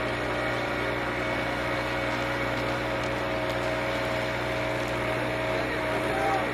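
Rice transplanter's engine running steadily as the machine moves through the paddy, a constant hum with a few fixed pitches.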